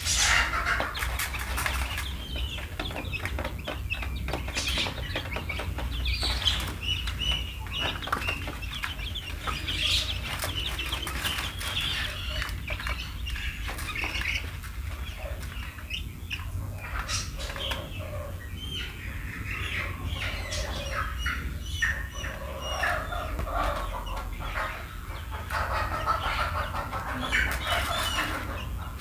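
A flock of young chicks cheeping continually with many short, overlapping high calls, mixed with scattered sharp clicks and taps as they peck at a grain feed tray, over a steady low hum.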